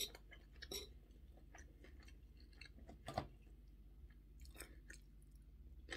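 Faint chewing of fried spaghetti, with a few soft mouth clicks, the loudest about three seconds in.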